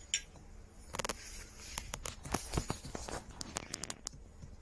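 Light, irregular clicks and taps of a cast-iron plane body rocking against a granite surface plate as it is pressed down at one end. It is being checked for flatness after straightening: the body still pivots in the middle.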